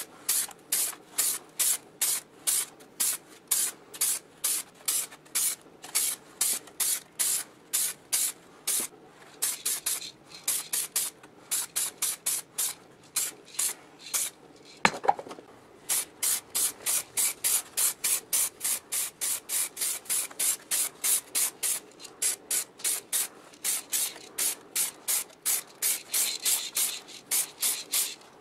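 Aerosol spray-paint can hissing in a long run of short, quick bursts, about two or three a second, with a single sharp knock about halfway through.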